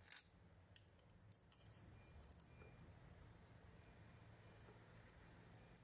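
Near silence with a low steady hum and a few faint, scattered clicks.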